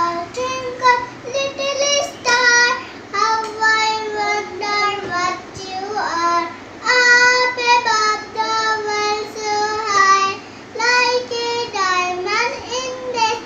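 A young girl singing a nursery rhyme alone in a high child's voice, holding each note for about a second with short breaks between phrases.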